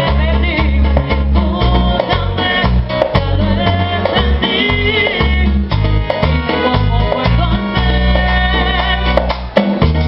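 Latin band music with a heavy, rhythmic bass line, guitar and a singing voice.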